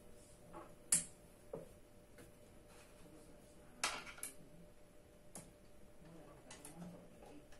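Sharp metallic clicks and taps from hand work on the underside of an office chair during assembly. One loud click comes about a second in and another near four seconds, with a few lighter taps between and after.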